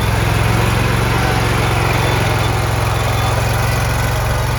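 Scag 61-inch zero-turn mower's engine running steadily at an even speed.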